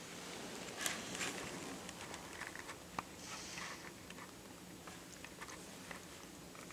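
Faint small clicks and crackles of a toddler handling and chewing a small snack, with a soft breathy hiss a little over three seconds in.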